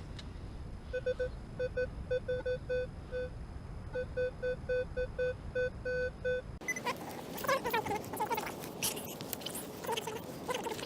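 Equinox 600 metal detector giving a string of short, same-pitched beeps in quick groups as the coil is swept back and forth over a target that reads a solid 13. About six and a half seconds in the beeping gives way to scraping, crackling and rustling close to the microphone.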